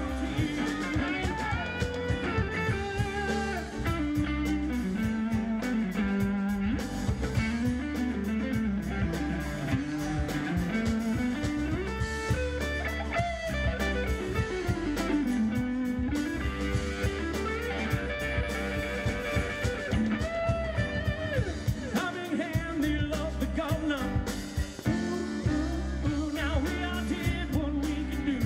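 Live band performing a song: a woman sings lead over electric and acoustic guitars, keyboard and a drum kit, with a steady beat.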